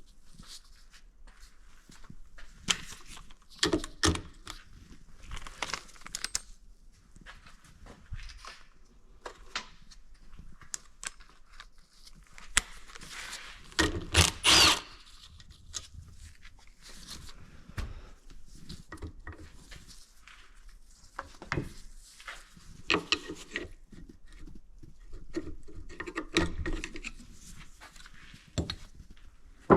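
Hand tools and metal parts working on a 1985 Yamaha Tri-Z engine during teardown: scattered clinks, clicks and knocks, with one louder grinding burst of about a second and a half near the middle.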